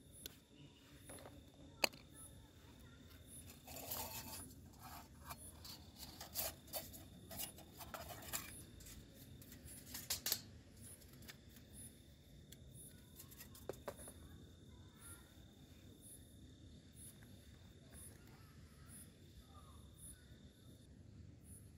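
Light metallic clinks and rattles of metal camping cookware and a metal stove windscreen being handled and set around a small alcohol burner, mostly in the first half, with a steady insect trill behind.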